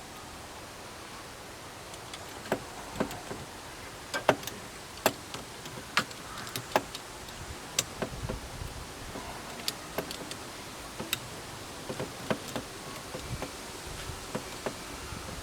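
Sharp, irregular metallic clicks and taps of hand tools working on a car battery cable clamp, starting a couple of seconds in and coming every half second to a second or so.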